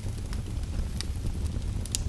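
Fire crackling: a steady low rumble of burning with a few sharp pops, the loudest near the end.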